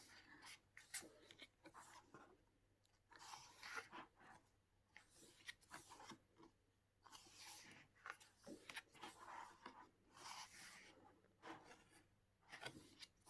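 Faint paper rustling and soft ticks of photo-book pages being handled and turned, in short scattered bursts.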